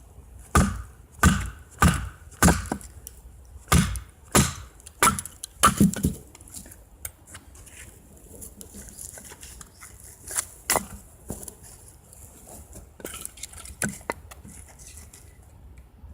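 Firewood being chopped: a run of sharp wooden strikes about half a second apart for the first six seconds, then a few scattered strikes later.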